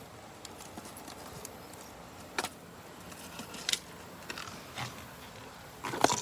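A few sparse, light clicks and rattles of something being picked through by hand, over a faint steady background hiss.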